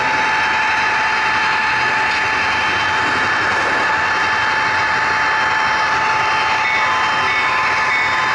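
HO-scale model train running along the track, heard up close from a camera riding on it: a steady rolling rush of wheels on rail with a constant whine from the drive. Faint short tones repeat near the end.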